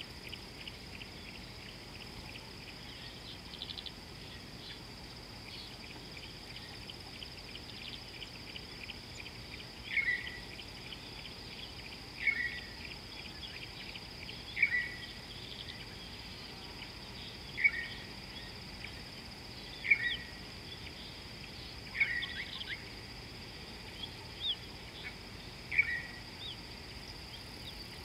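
Steady high insect drone over a natural outdoor background, with a bird giving a short sharp call that repeats about every two seconds from about a third of the way in.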